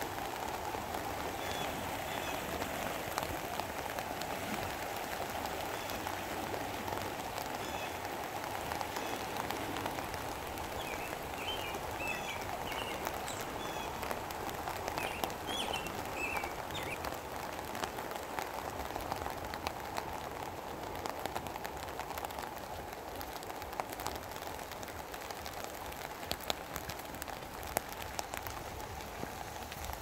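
Steady rain falling, with scattered single drops ticking close to the microphone. A few short bird chirps come around the middle.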